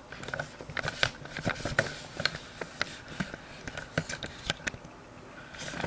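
Irregular plastic clicks, knocks and rattles of a small tripod stand being handled and lowered, with a short rustle near the end.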